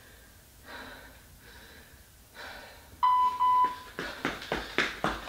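Heavy breathing during a rest interval, then an interval timer beeping loudly about three seconds in, in two or three short beeps on one high tone, to signal the start of a work round. About a second later rhythmic footfalls begin, about three to four landings a second, as high knees are performed on the spot.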